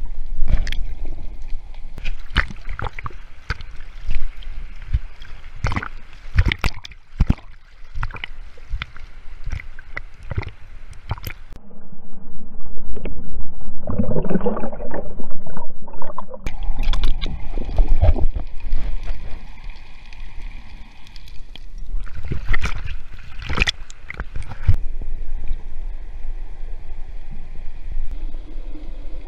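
River water heard from a camera held underwater: muffled sloshing and gurgling, struck by many irregular sharp clicks and knocks. For a few seconds in the middle the sound goes dull and lower, with a louder gurgle.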